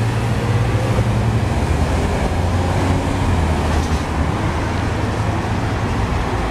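Road traffic going by, with a loud, steady low engine rumble.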